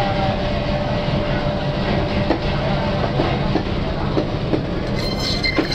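Electric band saw for cutting fish running steadily with a low motor hum and blade whir. Scattered short knocks and clinks come from fish pieces being handled on the steel table.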